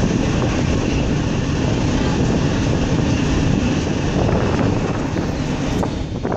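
Passenger ferry's engines rumbling steadily, heard from its open upper deck, with wind on the microphone.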